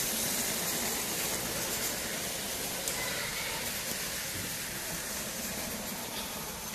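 Steady, even hiss of background room noise, with no distinct train or track sound standing out.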